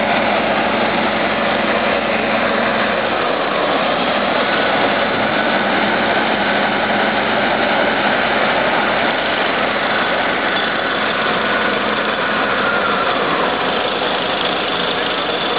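Heavy diesel engines running steadily under load as a crawler bulldozer tows a bogged-down Tatra 815 truck out of wet mud on a rope, the truck's engine running as well.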